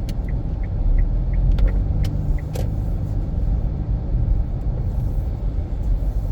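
Low, steady rumble of engine and tyres inside an Infiniti Q50's cabin, with a light tick about three times a second, in the manner of a turn signal, stopping about two and a half seconds in. A few sharp clicks come just before the ticking stops.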